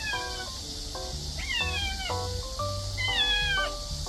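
Young orange cat meowing three times, each call gliding down in pitch, over background music.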